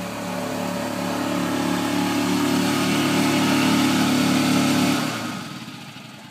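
Yamaha golf cart's engine running steadily under throttle, growing louder as the cart drives up out of the mud toward the listener, then stopping about five seconds in.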